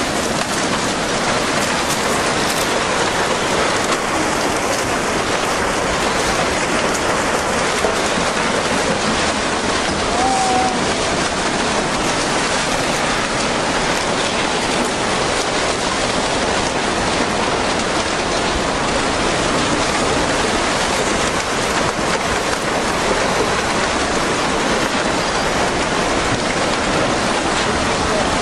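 Tsunami floodwater rushing: a dense, steady roar of water with no let-up.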